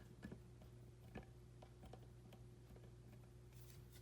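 Near silence: room tone with a steady low hum and two faint clicks.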